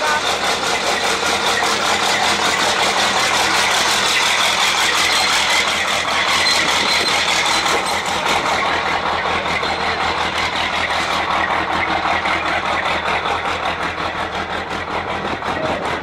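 Diesel engine of a MAZ rally-raid race truck running loud as the truck drives past close by, then easing off as it pulls away over the last few seconds.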